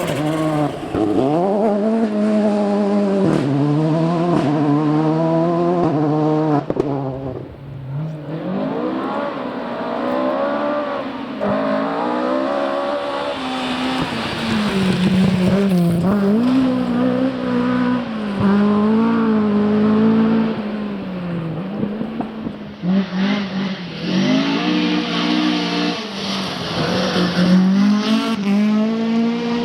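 Rally car engine driven hard, its note climbing and dropping again and again every second or two as the driver works through the gears and lifts off. The engine fades briefly about seven seconds in.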